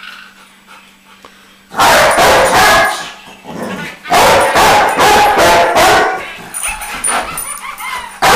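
Rottweiler barking loudly at a toy rat in two runs of quick barks. The first run starts about two seconds in, and a longer one starts about four seconds in.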